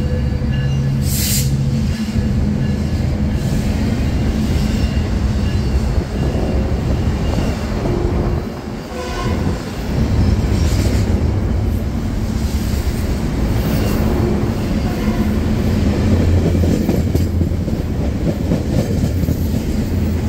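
Metrolink bilevel passenger coaches rolling past close by, then a BNSF double-stack container train: a steady, loud rumble of wheels on rail, louder from about ten seconds in.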